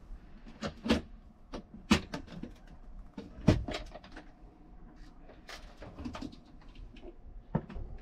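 Wall cabinet doors with push-button latches being opened and closed in a small washroom: a series of sharp clicks and knocks, the loudest about one, two and three and a half seconds in.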